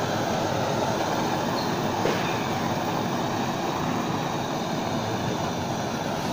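Two butane gas torches burning steadily with an even, continuous hiss, with a faint click about two seconds in.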